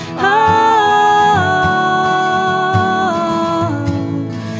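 A man and a woman singing long held notes together over strummed acoustic guitars; the notes change pitch twice.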